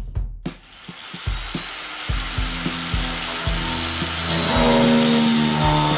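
Electric power tool motor spinning up about half a second in, its whine rising, then running steadily, over background music with a steady beat.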